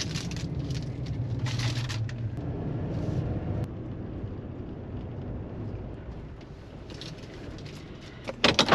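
Engine running with a steady low hum that turns to a duller rumble after about two seconds, with a few short rushes of noise.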